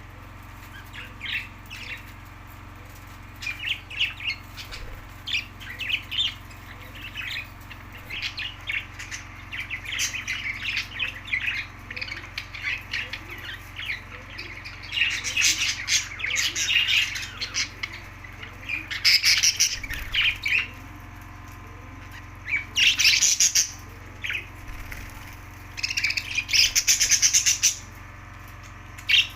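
Budgerigars chattering in quick, rapid chirps, with louder, harsher squawking bursts in the second half.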